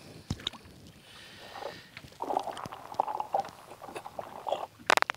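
Lake water splashing and sloshing as a smallmouth bass is let back into the water over the side of a boat, with a few sharp knocks near the end.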